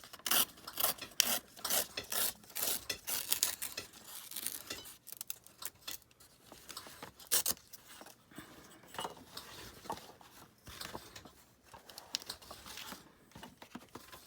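A paper calendar page being torn out, a quick run of ripping and rustling strokes over the first few seconds. After that, quieter rustling and handling of the paper.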